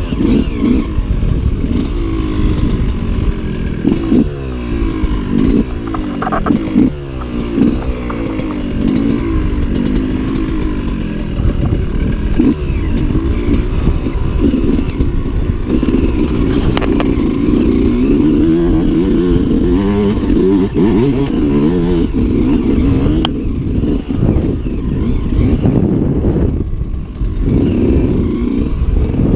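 Enduro motorcycle engine heard from on the bike, revving up and down over and over as it rides across rough ground, with occasional sharp knocks.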